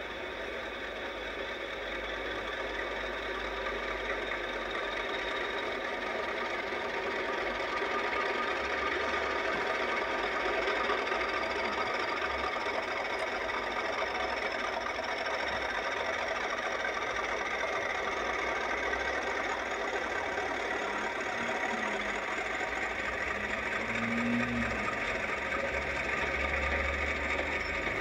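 Diesel locomotive engine running steadily, heard through old camcorder audio with a constant hiss.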